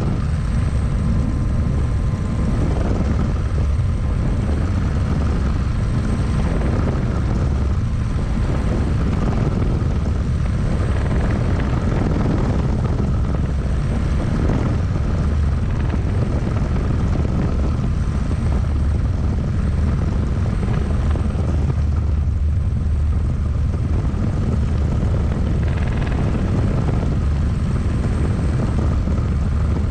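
Single-seat turbine-powered experimental helicopter, an Eagle R&D design, in cruise flight, heard from its cockpit: a steady, unchanging mix of rotor and turbine engine noise.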